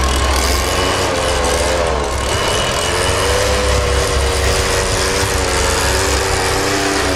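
Backpack leaf blower's small engine running steadily, its pitch wavering slowly up and down.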